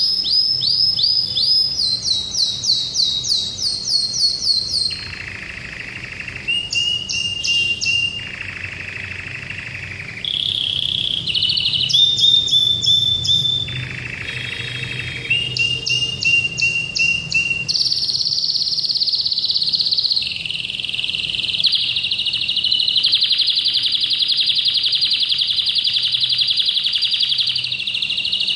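Domestic canary singing a long, continuous song: bright, metallic trills of rapidly repeated notes, switching every second or two between fast falling note runs, lower buzzing rolls and high whistled phrases.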